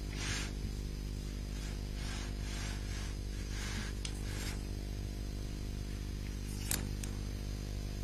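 Steady low electrical hum, with a few faint soft swishes of an ink brush on paper in the first half and one sharp click near the end.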